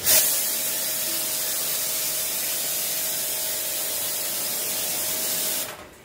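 Handheld spray gun spraying detergent solution onto a split air conditioner's indoor coil: a steady hiss with a faint steady tone beneath it, starting abruptly and cutting off shortly before the end.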